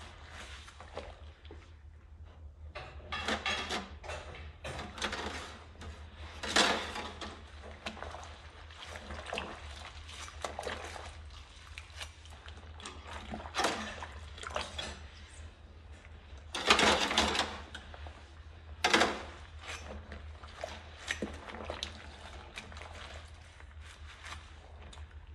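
Dishwashing by hand in a sink of soapy water: a sponge scrubbing cutlery, with irregular swishes and splashes and a few louder splashes, over a low steady hum.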